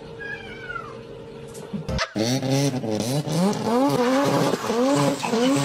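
An engine revving up and down over and over, its pitch rising and falling roughly once a second, starting suddenly about two seconds in; before that, only a faint short falling tone.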